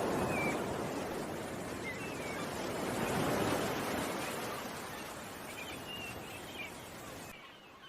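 Ocean waves washing onto a shore, swelling twice about three seconds apart and then fading. Small birds chirp briefly several times over the surf.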